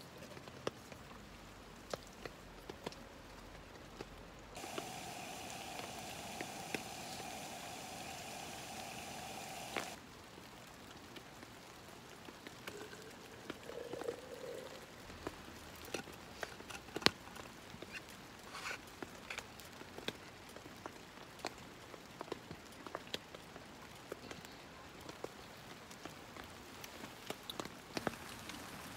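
Rain falling on a tent and tarp, raindrops ticking irregularly on the fabric. From about four and a half seconds in to about ten seconds a steady hum sounds over it, starting and stopping abruptly.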